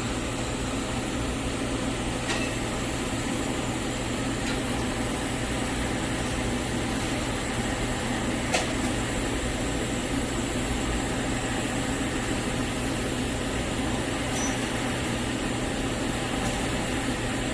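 Steady hum and hiss of a TIG (argon) welding arc running on carbon steel pipe, with the welding machine's drone beneath it and a few faint ticks.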